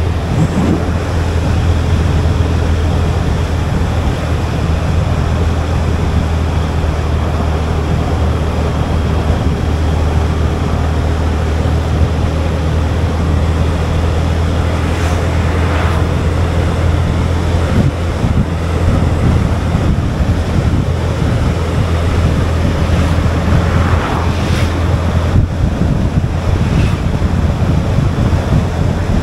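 Steady wind rush buffeting an action camera's microphone, with road noise from a moving vehicle and a heavy low rumble underneath.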